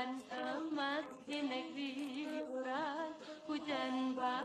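Background song with a woman singing held, wavering notes.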